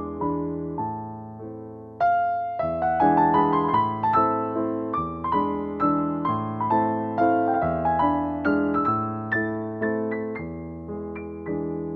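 Background piano music: a gentle melody of struck notes, getting louder about two seconds in.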